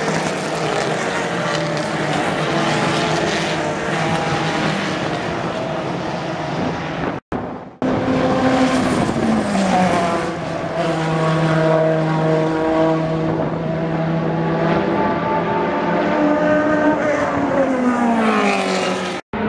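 Race car engines at high revs as prototypes and touring cars go by at speed, the engine note climbing and dropping with each pass. The sound breaks off briefly about seven seconds in.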